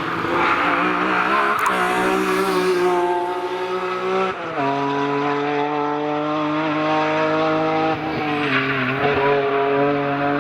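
BMW E46 M3 engine running hard at high revs, its pitch holding steady for seconds at a time and dropping sharply about four and a half seconds in, as at a gear change.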